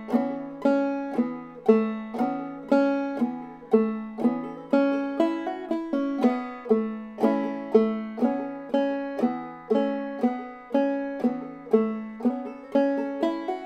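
Five-string banjo played slowly in clawhammer style, in standard G tuning capoed at the second fret: an even run of plucked notes and strums, about two strong strokes a second, each ringing and fading.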